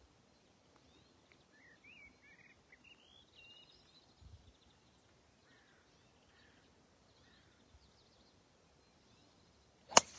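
Faint chirping of small birds, then near the end a single sharp crack of a golf driver striking the ball on a tee shot.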